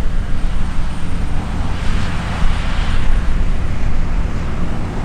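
Heavy harvest machinery running: a deep, steady engine rumble, with a rushing hiss that swells and fades about two to three seconds in.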